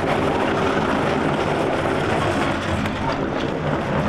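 Steady city ambience: a continuous wash of traffic-like noise with a low hum underneath and no single event standing out.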